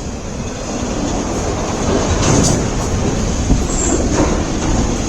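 Freight cars of a long mixed-freight manifest train rolling past at speed: steady wheel-and-rail rumble with scattered clacks and knocks, and a brief high wheel squeal about four seconds in.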